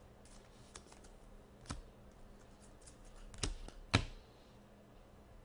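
Trading cards being handled and set down on a desk: a scatter of light taps and clicks, with a few sharper taps around the middle and about four seconds in.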